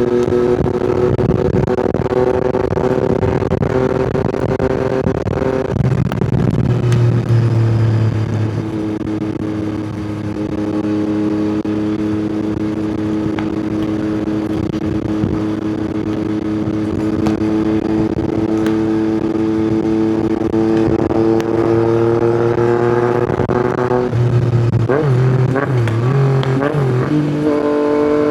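Yamaha MT-09 inline-three with an Akrapovic exhaust pulling on the road. The revs drop about six seconds in, then climb slowly and steadily for a long stretch. Near the end they rise and fall quickly a few times.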